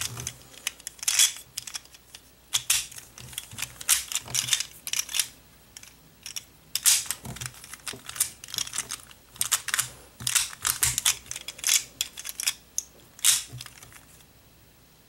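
Plastic Gear Shift puzzle being turned and pulled apart by hand while being solved: rapid, irregular clicking and clacking of gears and pieces, in quick clusters with brief pauses.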